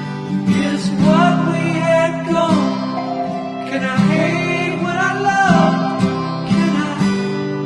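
Background music: acoustic guitar strumming with a voice singing over it.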